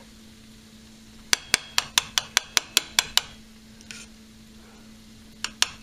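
A metal spoon tapping quickly against dishware while serving cooked rice, about five sharp clicks a second. One run comes in the first half and another starts near the end, over a faint steady hum.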